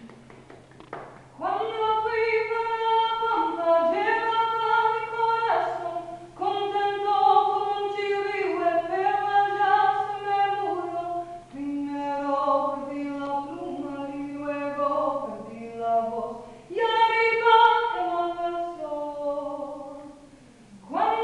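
A woman singing solo and unaccompanied, holding long steady notes in phrases of a few seconds with short breaks between them.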